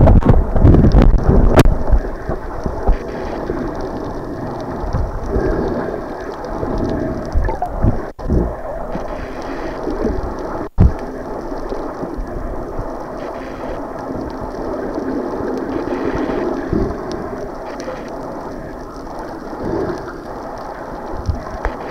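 Rumbling wind and sea-water noise battering a camera's microphone, with heavy low buffeting in the first two seconds.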